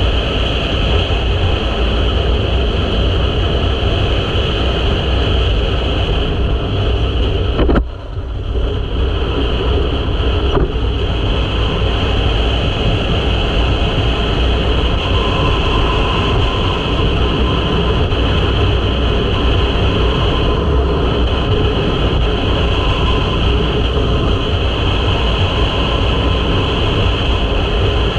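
Wind rush on the microphone over the running engine of a 2023 KTM 500 EXC-F single-cylinder four-stroke dirt bike at steady road speed, with a brief drop in the noise about eight seconds in.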